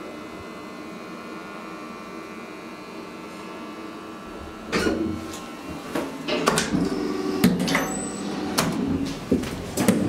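Hydraulic elevator running with a steady hum as the car travels, then, about halfway, a clunk followed by a run of knocks and clicks as the car stops and its doors and buttons are worked.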